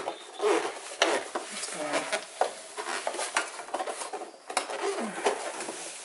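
Plastic clicks, taps and knocks of a Ram truck tow-mirror housing being handled and worked back together by hand, in an irregular scatter of short sharp clatters.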